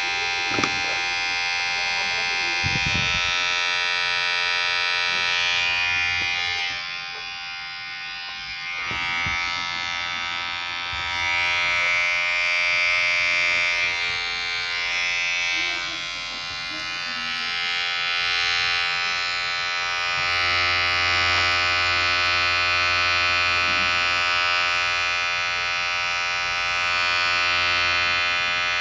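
Vibrating electric hair clipper buzzing steadily at one pitch, its loudness swelling and dipping several times. A couple of brief low knocks come in the first few seconds.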